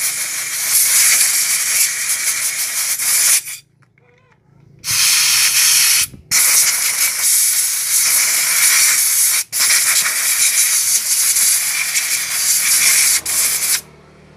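Aerosol carburettor cleaner spraying through its straw nozzle onto a motorcycle fuel pump's mesh filter, flushing out dirt and water. It hisses in long bursts, with a pause of about a second some three and a half seconds in and a few very short breaks, and stops shortly before the end.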